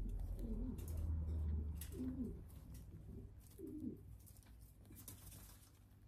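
Feral pigeon cooing three times in short, low coos while being held, with light rustling and clicking of the self-adhesive bandage being pressed onto its body.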